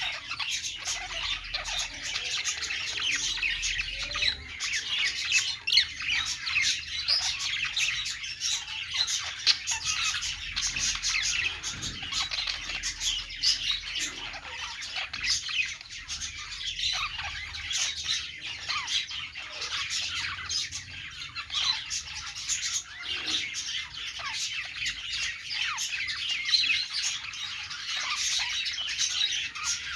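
Budgerigars chirping and chattering without a break, many quick overlapping chirps and squawks.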